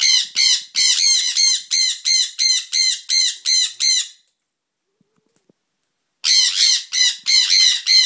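Sun conure screaming: a fast run of loud, shrill calls, about three a second, breaking off about four seconds in and starting again two seconds later.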